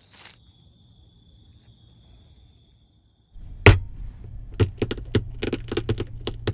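Shell of a hard-boiled egg being cracked on a cutting board: one sharp tap just past halfway, then a run of quick crackling clicks as the shell breaks under the fingers, over a low hum. Before that there is only a faint steady high whine.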